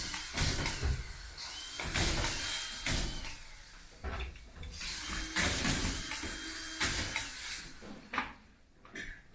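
Drywall crew fixing plasterboard to a ceiling: repeated knocks and clatter of the sheets and tools, with short high whirs of a drywall screw gun spinning up and down several times.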